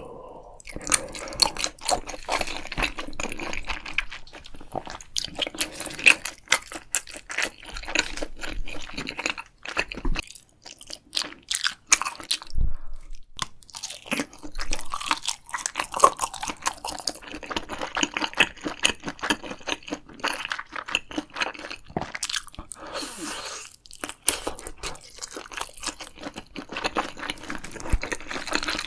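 Close-miked eating sounds: irregular crunching and wet chewing of food, dense clicks and crackles with a few brief pauses.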